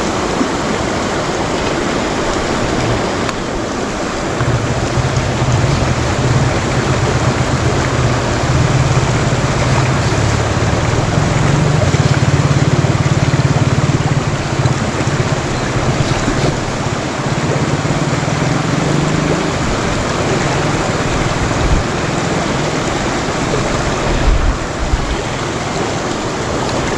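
Shallow, fast-flowing river rushing over rocks and gravel close by, a loud, steady wash of water. A deeper rumble runs under it from about four seconds in until nearly twenty seconds.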